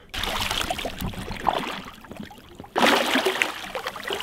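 Water splashing and sloshing around a snorkeler in fins, with a louder splash about three seconds in as he duck-dives under the surface.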